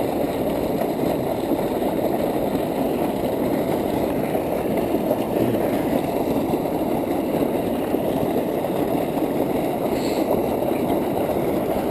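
Steady rushing of flowing canal water, an even noise with no breaks.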